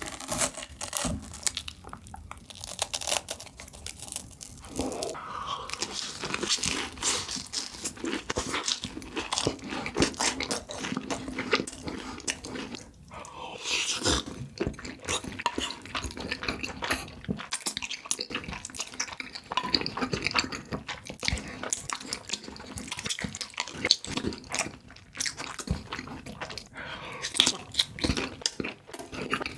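Close-miked mukbang eating of crunchy cheese food: repeated crisp crunching bites and chewing, with no pause longer than a moment.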